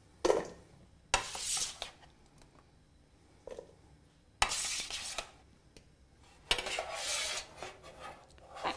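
Metal slotted turner scraping roasted butternut squash cubes off a metal roasting tin and dropping them into a stainless steel mixing bowl, in several short bouts of scraping and clatter.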